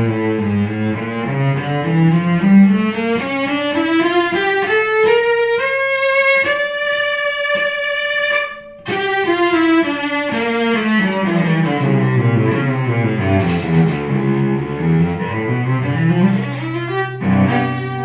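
Solo cello played with the bow: a melodic line climbing note by note from the low register into the upper range, a brief break about halfway through, then descending back to the low notes and starting to climb again near the end.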